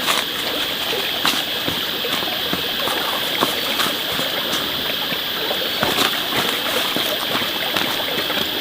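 Steady rushing, water-like noise with a constant high hiss and scattered light clicks and taps.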